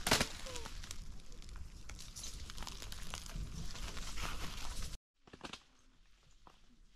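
Rustling and crackling handling noise with scattered clicks, opening with a sharp click. It cuts off suddenly about five seconds in, and a few faint clicks follow.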